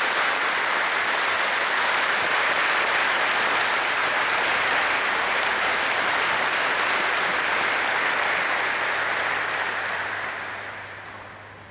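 Seated group of kendo practitioners applauding steadily, the clapping dying away near the end.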